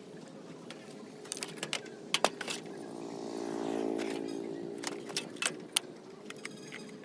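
Scattered sharp clicks and taps of small hard parts being handled, with a humming pitched sound that swells and fades about halfway through.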